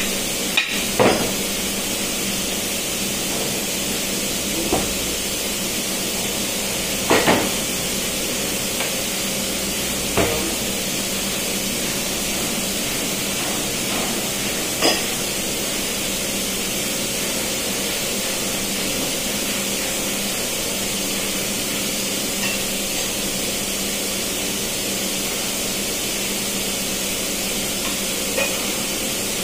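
Steady machinery noise of a ship's engine room: a loud hiss with a low hum beneath it. A few sharp metal knocks and clanks sound in the first half as the parts of a sea-water valve are handled and struck on a steel workbench.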